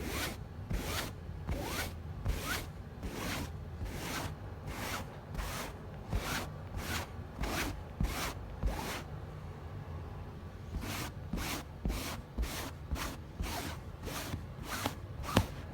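Pet hair scraper brush dragged in repeated rasping strokes across sofa upholstery, pulling embedded fur out of the fabric. The strokes come about one and a half a second, pause briefly about nine seconds in, then resume faster, over a steady low rumble.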